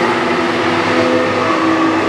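Racing car engine running hard, loud and steady, its pitch sagging slightly and then stepping up about a second and a half in.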